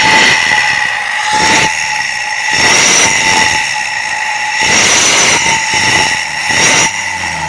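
Isuzu Panther's engine revved in about five short blips through a Suos 'jet' exhaust tip held over the tailpipe. The tip gives a steady high whistle like a night bus's jet exhaust, rising with each blip of the throttle.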